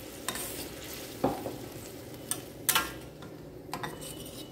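Metal spatula stirring vegetables and water in a metal kadai, with several sharp scrapes and clinks against the pan over a steady sizzle as the freshly added water heats on a raised flame.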